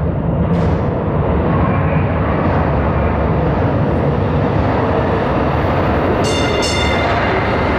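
MetroLink light-rail train running through an underground tunnel: a loud, steady rumble. A high-pitched metallic squeal comes in about six seconds in, in short pulses.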